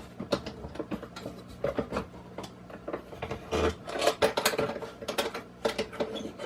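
Irregular clicks, taps and scrapes of a metal corner bracket and hand tools being handled and set against 2x4 lumber, busiest about halfway through.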